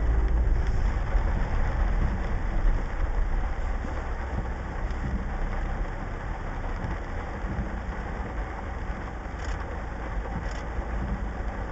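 Vehicle engine running low and heavy on a flooded street in a downpour, over a steady hiss of rain and water; the rumble is loudest at the start and fades over the first few seconds.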